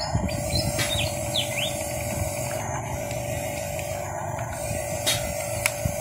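Toy RC bulldozer's small electric drive motors whining steadily as it pushes against an RC car, with a few high bird chirps about a second in and a couple of sharp clicks near the end.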